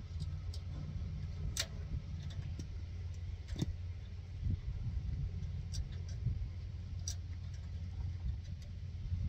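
Barbed wire and fencing pliers clicking as the wire is twisted and wrapped around itself, a few sharp metallic clicks scattered through, over a steady low rumble.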